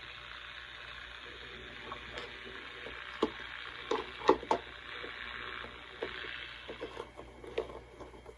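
Faint hiss and static from a Crown HT 460 AM transistor radio's speaker, with scattered crackles and pops. The audio is weak: the radio is only just playing again. The hiss thins out near the end.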